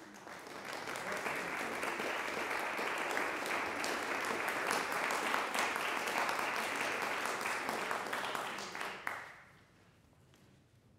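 Audience applauding with a dense patter of many hands clapping. It swells over the first second or two, holds steady, then dies away about nine seconds in.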